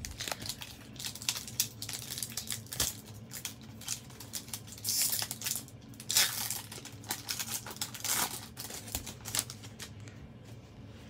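Foil trading-card pack wrappers crinkling and being torn open by hand: a run of short crackles, with a few longer rips about five, six and eight seconds in.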